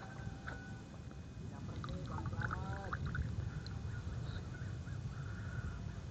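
Several short animal calls in quick succession, each rising and falling in pitch, about two to three seconds in, with a few fainter chirps later, over a low steady rumble.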